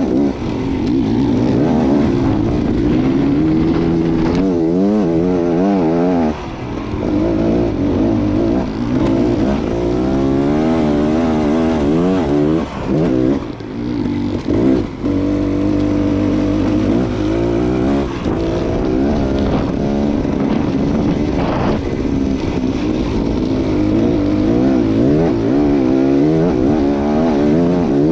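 Beta Xtrainer two-stroke enduro motorcycle engine running under load, its pitch rising and falling constantly with the throttle. It backs off briefly a few times, once about six seconds in and again around halfway.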